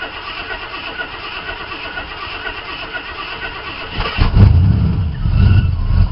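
Jeep engine being started cold after a tune-up: the engine turns over steadily, then about four seconds in it fires and runs much louder for about two seconds.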